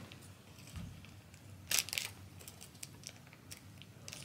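Small plastic toy packet crinkling faintly as it is handled, with one brief louder crinkle a little under two seconds in.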